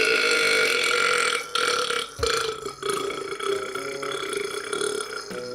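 A man burping on command: one long, drawn-out belch at a fairly steady pitch lasting several seconds. It is loudest for the first second and a half, breaks briefly twice around one and a half and two seconds in, then carries on more quietly.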